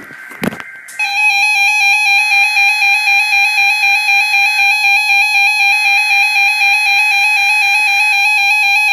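Emergency Alert System attention signal: a loud, steady electronic alarm tone that starts about a second in, after a couple of clicks, and holds without a break.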